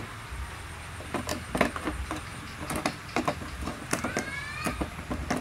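Light clicks and taps as a small paint brush is worked and dipped into an open paint can. About four seconds in there is a short, rising squeak.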